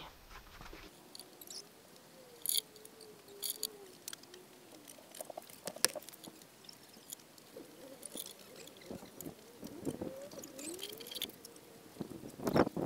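Soft rustling and scattered light taps of gloved hands working loose garden soil while planting rose cuttings, over a faint, slowly wavering tone. It gets louder near the end as the hands press the soil.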